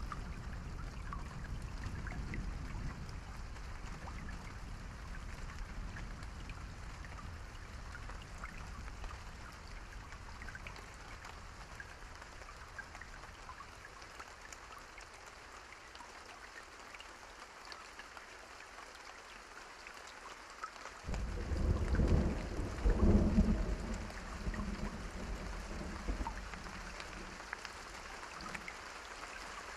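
Steady rain with thunder. A low rumble fades away over the first dozen seconds; about two-thirds of the way through, a sudden loud thunderclap breaks in and rumbles for a few seconds before dying away.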